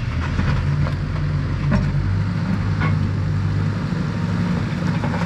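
Caterpillar 420F backhoe loader's diesel engine running steadily, with a few light clicks and clanks over the drone.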